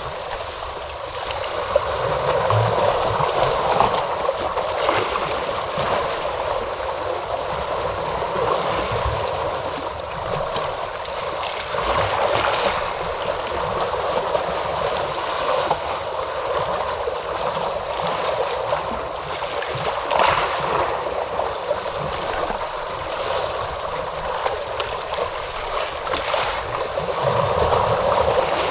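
Ocean surf washing in steadily, swelling and easing gently over several seconds.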